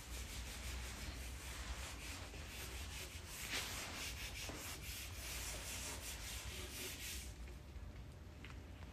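Hands rubbing and sliding a sheet of white paper over a glass tabletop, a dry continuous rubbing with one stronger scrape about a third of the way in, stopping about a second and a half before the end.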